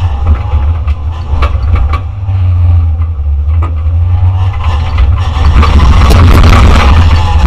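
Competition car's engine and drivetrain heard from inside its stripped, roll-caged cabin during an autocross run, a loud low rumble with a few sharp knocks and rattles. From about five seconds in it grows louder and fuller.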